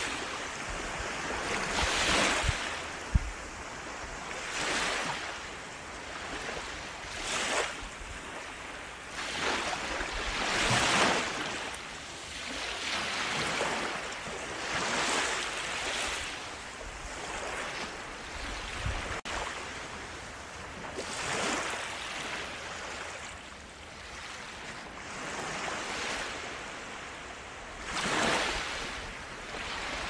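Small waves breaking and washing up a sandy beach, each wash swelling and fading every two to three seconds.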